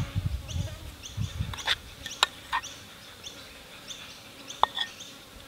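A metal spoon clinks a few times against a saucepan and plate as dressing is spooned over food. Birds chirp and flies buzz faintly behind it.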